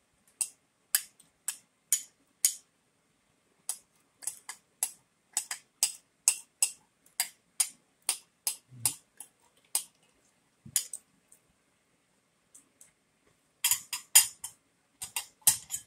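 Eating with a spoon and fork from a ceramic plate: quick, irregular light clicks and taps, about two or three a second, coming thicker near the end.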